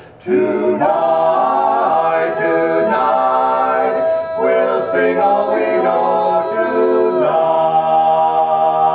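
Male a cappella quartet singing in four-part harmony, moving through sustained chords after a brief breath at the start, with a long held chord near the end.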